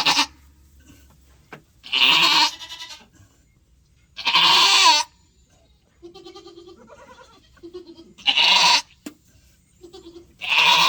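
Doe goat in labor bleating loudly and repeatedly: about five strained, half-second cries roughly two seconds apart, with quieter low grunts between them.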